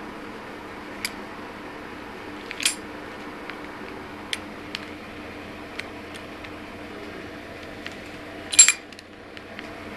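Homemade wrist-mounted hidden blade, built from an old switchblade, giving a series of sharp metallic clicks and rattles as the blade mechanism snaps out and back, with the loudest clatter near the end. A steady low hum runs underneath.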